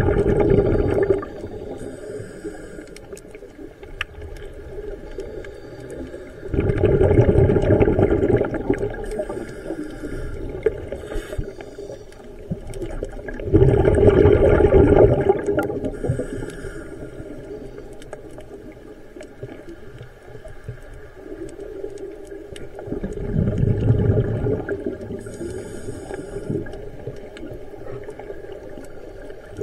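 Scuba diver breathing through a regulator underwater: four loud bubbling exhalations about seven to nine seconds apart, with a fainter hiss between them.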